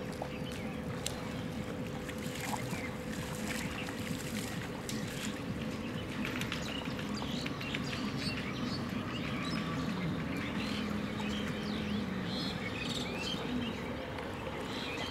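Water sloshing and swishing steadily as several men wade through a pond, dragging a seine net through the water.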